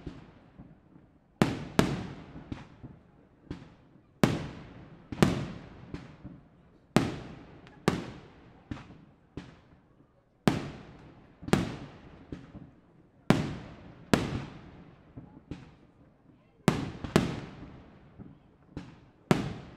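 Aerial firework shells bursting one after another, about twenty sharp bangs at roughly one a second, often in close pairs, each trailing off in an echo.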